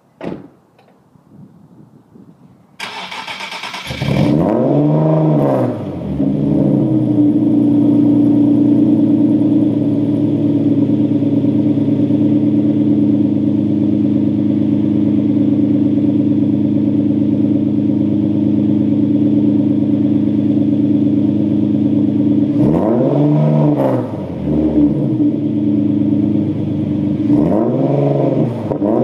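Nissan 370Z's 3.7-litre V6 cold-starting through a custom 3-inch single side-exit exhaust: a click, about a second of starter cranking, then the engine catches with a flare of revs and settles into a steady cold idle. Near the end it is blipped a few times, the revs rising and falling.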